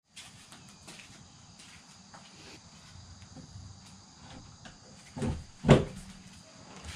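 Steady insect chirring in the background, with two heavy thumps a little past five seconds in, the second louder, as a white door panel is shifted and bumped against a wall.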